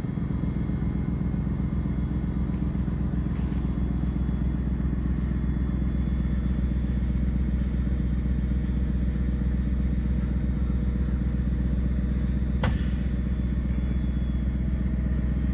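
Steady low mechanical drone of a motor running, with one sharp click near the end.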